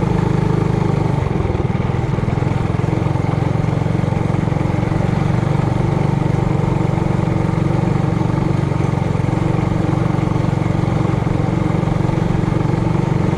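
Trailmaster Hurricane 200X mini bike's four-stroke engine running steadily at an even, low speed.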